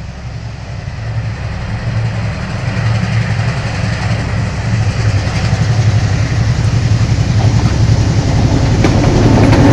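Sri Lanka Railways M6 class diesel locomotive No. 788 emerging from a tunnel and approaching, its engine's low rumble growing steadily louder.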